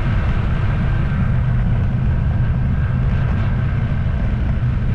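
A motor vehicle's engine running steadily with road noise, a constant low hum.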